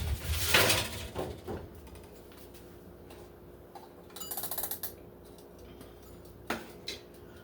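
Kitchen clatter from a sheet pan going into the oven. A noisy scrape comes first, then a few light knocks and a short metallic rattle about halfway through, over a faint steady hum.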